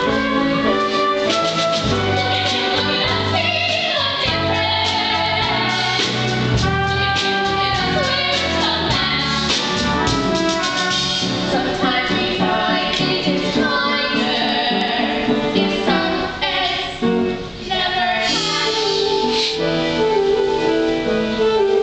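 A musical-theatre song: singers, female voices prominent, possibly with some ensemble voices, over an instrumental accompaniment.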